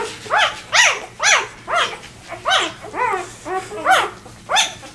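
Two-day-old vizsla puppy crying: a rapid series of short squealing calls, about two a second, each rising and then falling in pitch. These are the distress cries of a newborn puppy separated from its mother and litter.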